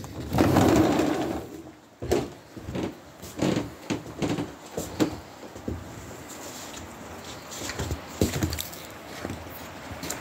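Footsteps crunching in fresh snow on a deck: a string of uneven crunches about two a second, with a few more later. They follow a loud rush of noise at the start.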